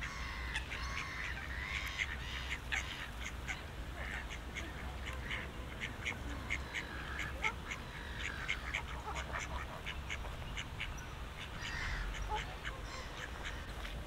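White domestic ducks quacking, over a steady run of short, sharp chirps from small birds and a low, steady rumble.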